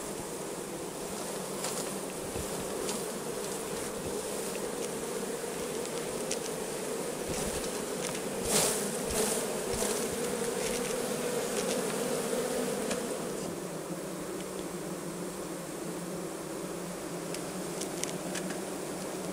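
Honeybees buzzing steadily at an open hive, with a few sharp clicks about halfway through; the buzz eases a little about two-thirds of the way in.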